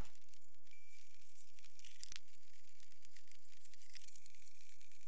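Faint crinkling and rustling of plastic packaging being handled, with scattered small ticks over a low steady hum.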